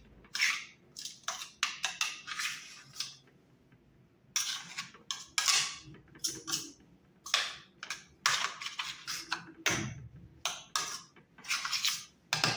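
A metal spoon scraping and clinking against the stainless-steel bowl of a small electric grinder as thick ground-peanut paste is stirred off the walls, in irregular strokes with a short pause partway through. The grinder is stopped: the paste is being loosened between grinding runs.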